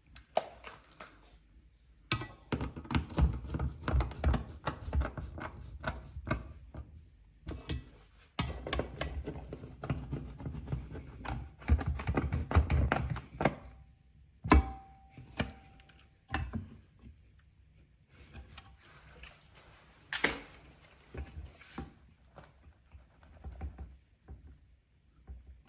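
Long bursts of rapid clicking and clattering, then several separate sharp knocks with quiet between them.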